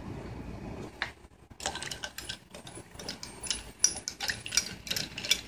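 Coffee poured over ice cubes in a glass, stopping about a second in. Then a long metal spoon stirs the drink, clinking quickly against the ice cubes and the glass.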